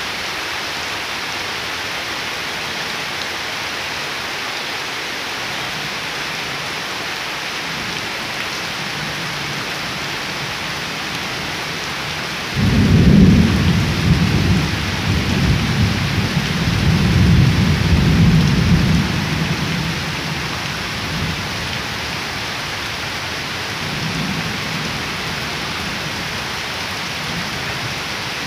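Steady heavy rain pattering on a waterlogged yard and leaves. Partway through, a low rumble of thunder breaks in suddenly, swells a second time and fades out after about seven seconds.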